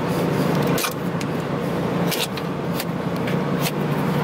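Buick B-body station wagon's engine idling steadily after a cold start on a car that had sat for a long time, with a few short sharp clicks or knocks over it.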